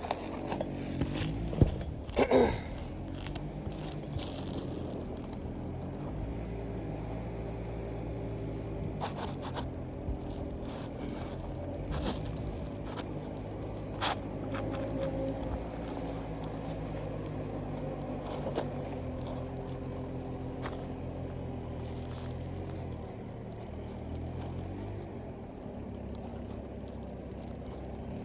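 Asphalt roof shingles being handled and scraped, with scattered clicks and rustles from the hand-held phone, over a steady low hum.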